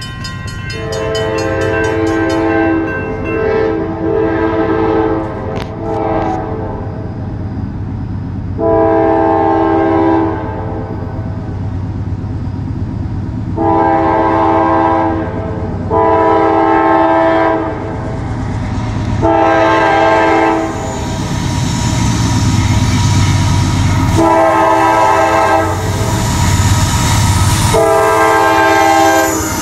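CSX locomotive's multi-chime air horn sounding a long series of blasts, long and short, as for a grade crossing. Under it the rumble of the diesel locomotives and their wheels on the rails grows louder from about two-thirds of the way in as the train arrives.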